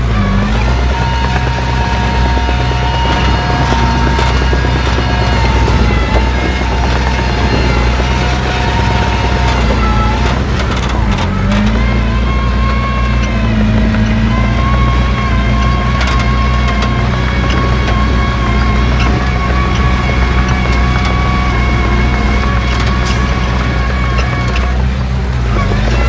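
Small crawler bulldozer's diesel engine running steadily, a dense low drone with thinner whining tones above it that drift slowly in pitch.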